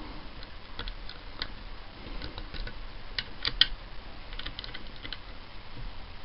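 Small, irregular metallic clicks from a dimple pick working the telescopic pin stacks of a Mul-T-Lock Basic euro-profile lock cylinder. A quick cluster of louder clicks comes about three and a half seconds in.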